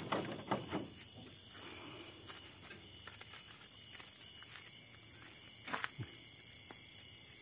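Night insects, crickets among them, trilling steadily, with a few soft clicks and knocks in the first second and again about six seconds in.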